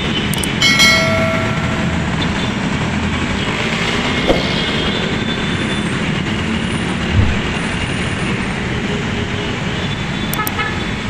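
Busy city street traffic: a steady rumble of engines and tyres. A horn sounds briefly about a second in.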